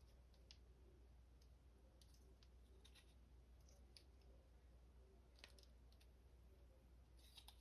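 Near silence with faint, scattered clicks of a plastic action figure's parts being handled and folded during transformation.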